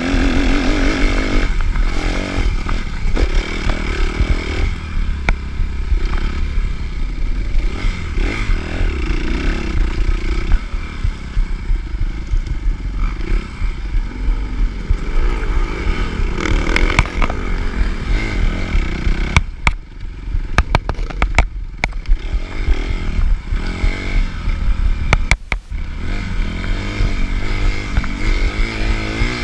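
Suzuki RM-Z250 four-stroke single-cylinder motocross engine revving up and down as the bike is ridden hard over rough ground, over a strong low rumble with rattles and scrapes. Runs of sharp clicks and knocks come about two-thirds of the way through and again a few seconds later.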